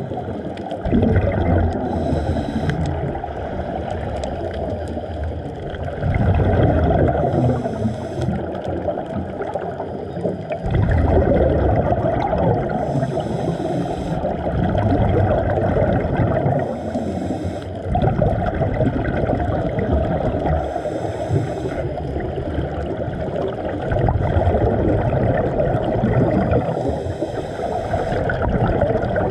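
Scuba breathing through a regulator heard underwater: a dull rushing of exhaled bubbles swelling about every five to six seconds, alternating with the regulator's short hiss on each inhale.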